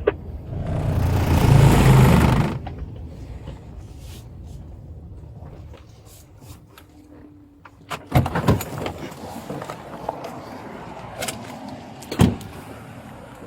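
Patrol car pulling up for a traffic stop: a loud rush of noise for about two seconds near the start, then a steady low engine hum with a few sharp knocks and clatter about eight seconds in and again near twelve seconds.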